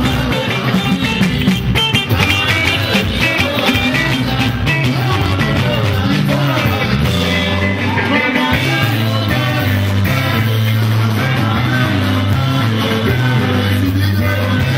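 Live band music: electric guitars over a prominent, repeating bass line, with a male singer.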